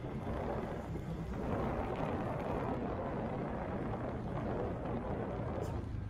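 Moving vehicle on a road: a steady engine hum with wind rumbling on the microphone.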